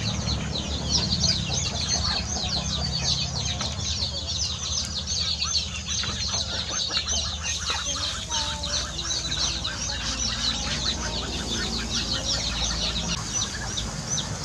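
Chickens clucking and peeping, with rapid high calls repeating throughout and a few lower wavering calls partway through, over a low steady rumble.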